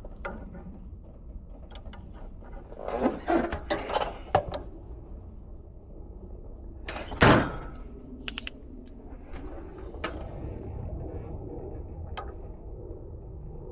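Clatter of things being handled: a run of light knocks and rattles, then one loud knock about halfway through and a few small clicks, over a steady low hum.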